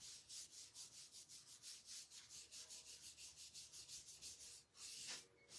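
Faint, quick back-and-forth strokes of a paintbrush spreading chalk paint on a picture frame, about four a second, with a longer stroke near the end.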